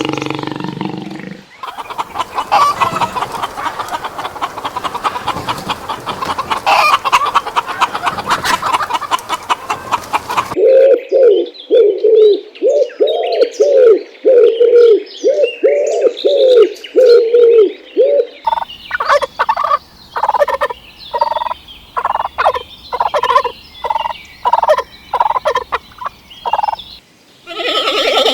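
Domestic fowl calling in a series of separate clips: first a dense, chattering flock, then repeated short calls at about two a second, then quicker, sharper calls near the end.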